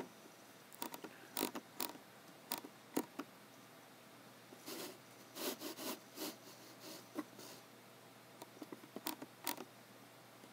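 Computer mouse and keyboard in use: separate sharp clicks in the first few seconds and again near the end, with a run of softer, longer scraping strokes in the middle.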